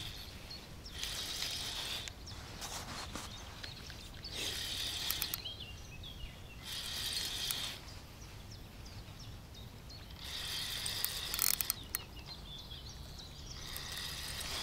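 Fishing reel working in short ratcheting spells of about a second each, five times, while a hooked carp is played on a float rod.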